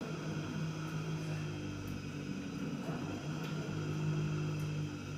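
LG dishwasher running with a steady grinding hum, the abnormal noise it makes during its cycle.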